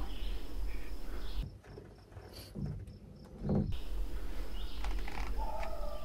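Outdoor field ambience: a low steady rumble with faint insect and bird calls. A held, pitched call starts about five seconds in.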